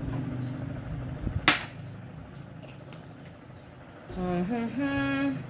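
A drinking glass set down on a glass tabletop with one sharp clink about a second and a half in. Near the end comes a short wordless voice sound.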